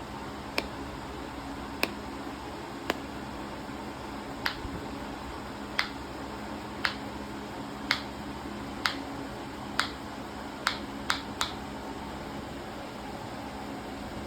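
Green-winged macaw clicking its beak: about a dozen sharp single clicks, roughly one a second, the last few coming quicker before they stop.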